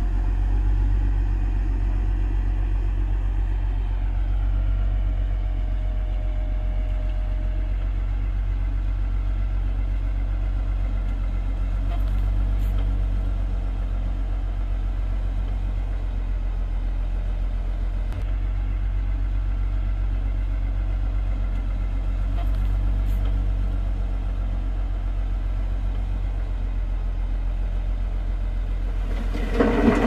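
Heavy earthmoving machine's diesel engine running steadily, a deep even drone with little change in pitch or level.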